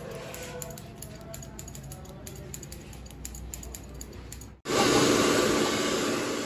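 Barber's scissors snipping hair in a run of quick clicks. About four and a half seconds in, a hand-held hair dryer is blowing, the loudest sound, with a steady hiss that slowly fades.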